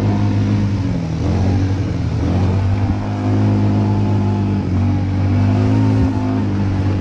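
ATV (quad bike) engine running under throttle while being ridden. Its pitch dips and climbs again a couple of times in the first few seconds as the throttle eases and opens, then holds steady.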